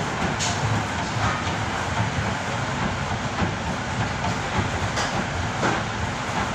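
Steady mechanical rumble and hiss of running machinery, with a few faint clicks near the start and about five seconds in.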